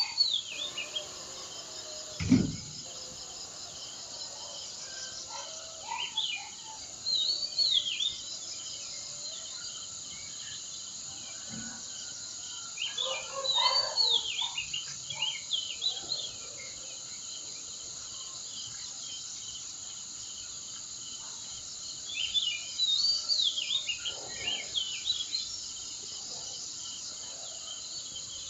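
Wild birds singing in short bursts of chirps and quick rising-and-falling whistled phrases every several seconds, over a steady high-pitched background hum. There is one brief low thump a couple of seconds in.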